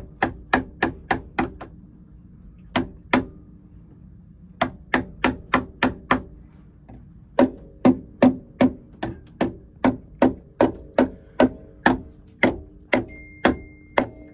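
Mallet blows driving a tight-fitting new impeller into the raw-water pump of a Perkins 4-108 diesel. There is a quick run of knocks, a pause, two more blows, then a long steady series at about three blows a second, each with a short metallic ring.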